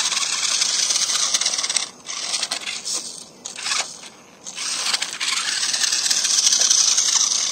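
Toy RC rock crawler's small electric motor and plastic gearbox whining as it drives up a dirt slope. It cuts out briefly three times in the first few seconds as the throttle is let off, then runs steadily.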